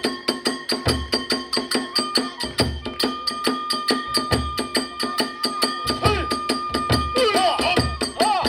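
Kagura ensemble music: a fast, steady beat of drum and hand-cymbal strikes under a flute holding long notes, its pitch stepping up about two seconds in.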